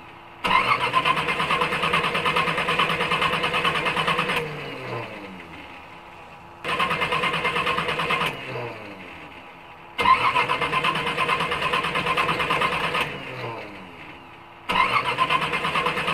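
A car engine is revved in repeated bursts. Each burst starts suddenly, is held for about one and a half to four seconds, then is let go, and the engine winds down with falling pitch before the next burst, four in all.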